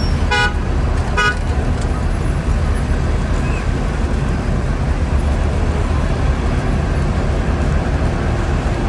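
Two short vehicle-horn toots in the first second and a half, over steady street traffic noise with a heavy low rumble.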